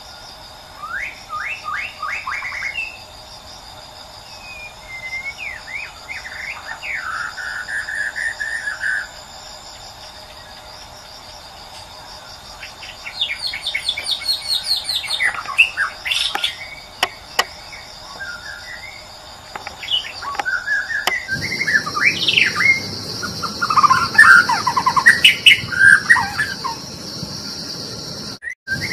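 Shama song: varied whistled phrases, sweeping notes and quick trills, over a steady high insect drone. About two-thirds of the way through, the background changes abruptly and the song becomes louder and denser.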